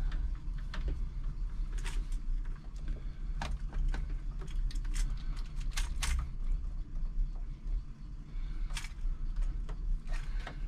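Small clicks, taps and rattles of cables and a VGA connector being handled and plugged in behind a computer, over a steady low hum.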